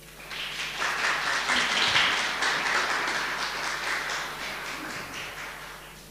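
A small seated audience applauding, the clapping building up over the first second and fading away near the end.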